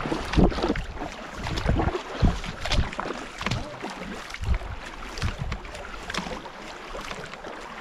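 Canoe paddles stroking and splashing through river water, with low thumps strongest in the first few seconds.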